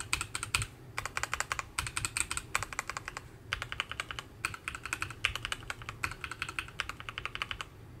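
Fast typing on a Keychron Q11 mechanical keyboard silenced with a masking-tape mod. Quick runs of key clicks come with short pauses between them and stop shortly before the end.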